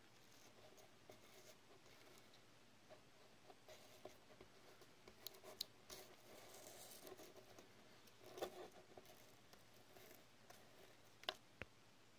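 Faint rustling and light clicks of a card hang tag and the plastic wrap on a watch strap's buckle being handled by fingers, with a sharper click near the end.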